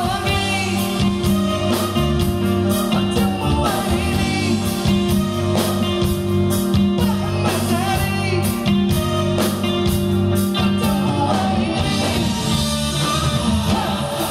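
A live band playing a Malay pop song: a woman singing into a microphone over electric guitar and keyboard, with a steady drum beat.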